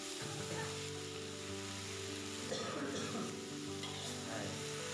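Water spinach and terasi sizzling as they are stir-fried in an aluminium wok. A metal spatula scrapes and clatters against the wok as the leaves are tossed, most busily about two and a half to three seconds in.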